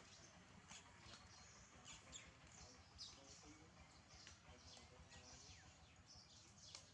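Faint small birds chirping: short, high notes falling in pitch, about two a second, over a low background rumble.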